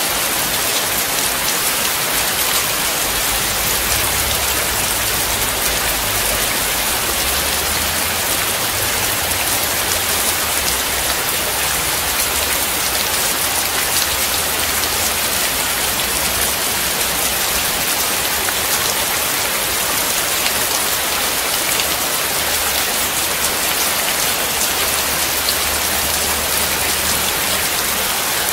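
Steady rain: a dense, even hiss made of countless small drop hits, with a faint low rumble coming and going underneath.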